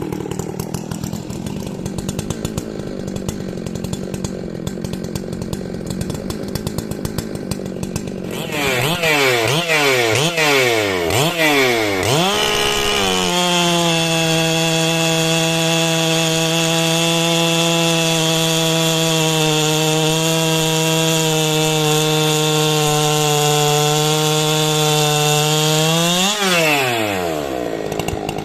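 Big 90cc-class professional two-stroke chainsaw running: it idles unevenly at first, is blipped up and down several times, then is held at a steady high rev for about thirteen seconds before the throttle is released and it drops back, then revs again at the very end.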